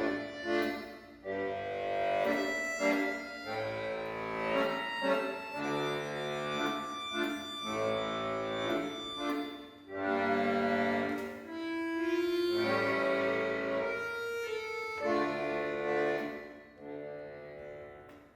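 Instrumental background music of held chords and a melody, fading out near the end.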